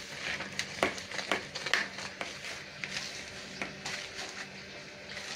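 Hand mixing dry wheat flour and spices in a plastic bowl: irregular, soft scratching and rustling strokes of fingers through the flour and against the bowl, over a faint steady hum.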